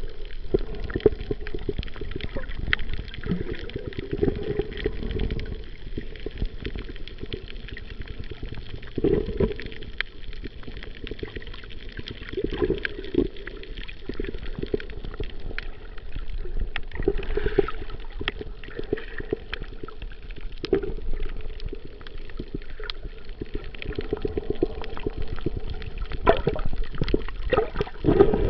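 Underwater sound from a camera in a waterproof housing: muffled water rushing and sloshing, swelling now and then, with many small clicks and crackles throughout.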